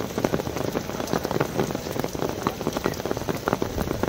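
Rain falling steadily: a dense, even patter of many drops.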